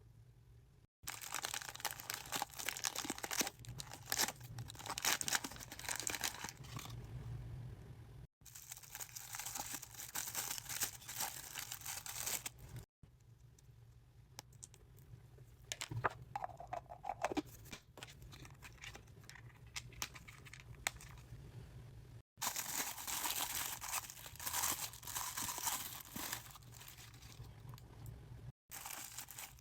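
Plastic and foil toy packaging being torn open and crinkled by hand, in several spells of rustling and crackling with abrupt breaks between them.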